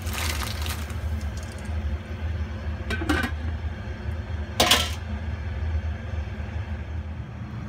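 Diced potato, carrot and corn kernels tipped into a stainless steel pot of water with a brief splashing rush, then two sharp metallic clinks, the second louder, as the glass lid goes onto the pot, about three and four and a half seconds in. A steady low hum runs underneath.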